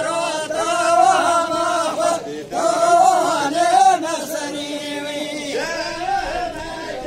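Men singing a folk song for a govend line dance, in long drawn-out phrases with a short pause about two seconds in; no drum or other instrument is heard.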